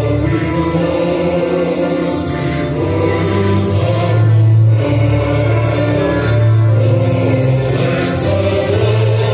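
Men's folk choir singing a slow song in long held chords, several voices together.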